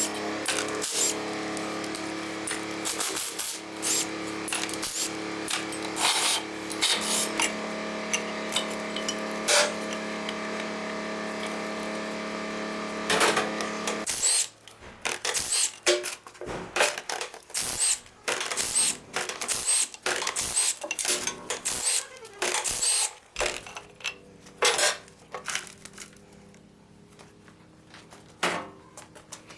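Metal tools and engine parts clinking and clanking during engine disassembly, over a steady hum that stops about halfway through; the clanks then carry on and thin out near the end.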